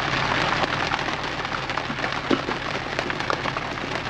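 Pouring rain hitting the roof of a Jeep, heard from inside the cab: a dense hiss full of many separate sharp taps of drops.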